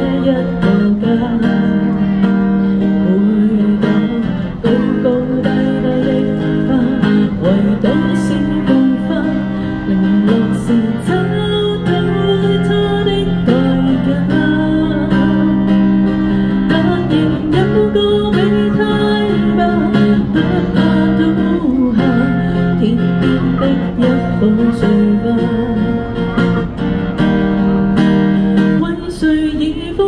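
Acoustic guitar strummed in held chords, with a woman singing over it through a small amplified busking setup.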